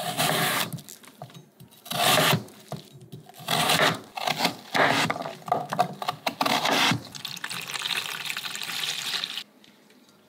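Chef's knife cutting through raw Korean radish on a wooden cutting board, in five or six separate strokes each ending on the board. This is followed by a steadier stretch of lighter scraping noise that stops about nine and a half seconds in.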